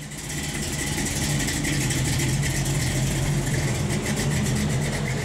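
Engine running steadily at idle, fading in at the start and then holding a level, even note.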